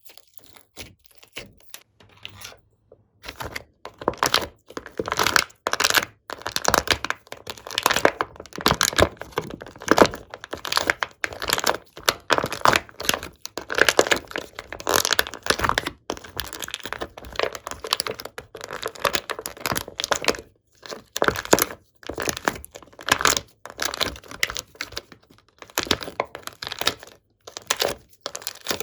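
Slime being kneaded and stretched by hand, giving off dense crackling and popping in uneven bursts. It starts faint and grows loud about three seconds in.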